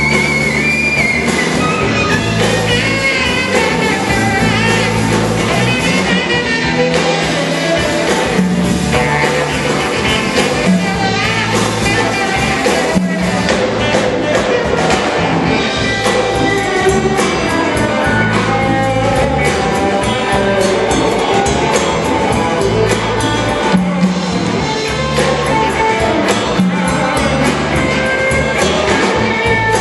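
Live blues-rock band playing: a saxophone lead over electric guitar, electric bass and drum kit, with a repeating bass line underneath.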